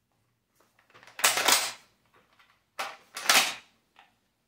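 Handling noise as an M1903 rifle is lifted off a cloth-covered table: two loud scraping rustles, about a second in and about three seconds in, with a few light knocks between them and a short one near the end.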